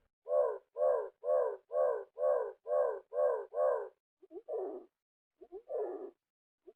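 Reconstructed prehistoric bird call built from songbird recordings: one note repeated eight times at about two a second, then three slower, longer notes, each led in by short clicks.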